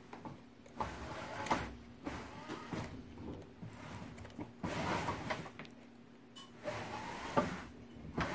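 Electric drive motors of a homemade radio-controlled robot base whirring in several short bursts as it starts, turns and stops on carpet, with sharp clicks between the runs.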